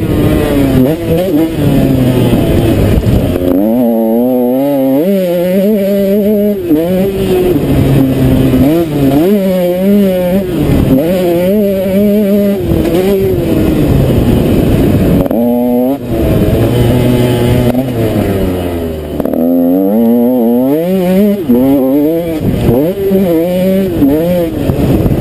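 KTM SX 125's single-cylinder two-stroke engine ridden hard on a motocross track, its pitch repeatedly climbing and then dropping back as the throttle is opened and closed, with short wavering dips between climbs.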